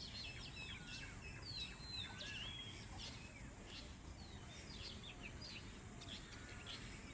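Small birds chirping and twittering, many short quick calls with rising and falling notes, over a faint steady low rumble.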